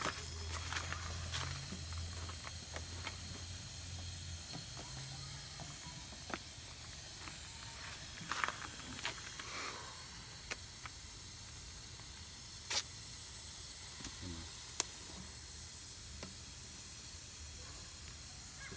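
Steady faint hiss from a homemade cigar-smoke vacuum-leak tester pushing smoke along its line, with a low hum for the first four seconds or so and a few light clicks and taps.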